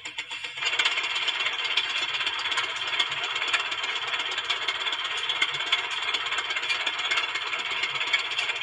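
A steady mechanical rattle, dense with small clicks, which jumps in level under a second in after a slower, even pulsing.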